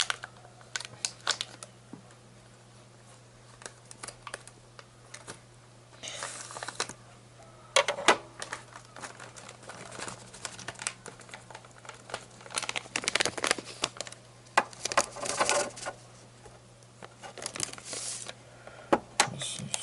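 Handling noises: scattered clicks and taps with bursts of rustling and crinkling, busiest about six seconds in and again in the second half, over a steady low hum.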